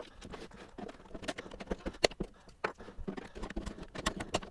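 Hands and tools handling and prying at a plastic equipment housing with old, stiff snap-in catches: a string of irregular light clicks and knocks, with a sharper click about two seconds in.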